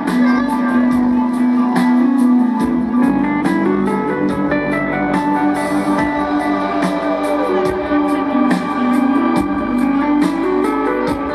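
Live rock band playing a slow song through a large concert PA, heard from the audience, with guitar to the fore over a held low note. One guitar note slides downward about seven seconds in.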